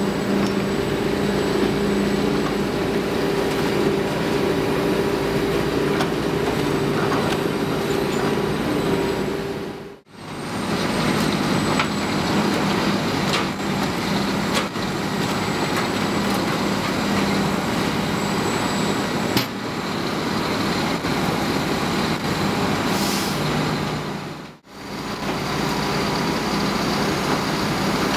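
Diesel engines of a Doppstadt DW-3060 Büffel slow-speed shredder and a Hitachi Zaxis 250 tracked excavator running steadily under load as tree stumps are fed in and broken up, with scattered knocks and cracks. The sound cuts out briefly twice, about ten and twenty-five seconds in.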